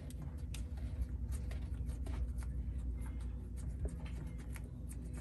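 Cotton swab scrubbing inside the vented loop fitting of a boat's toilet waste line to clear deposits: faint scratchy rubbing with small irregular clicks, over a steady low hum.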